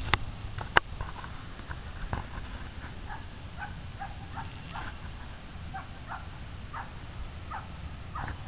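An animal calling in short, repeated calls, about one or two a second from around three seconds in, over a steady low rumble. Two sharp clicks sound in the first second.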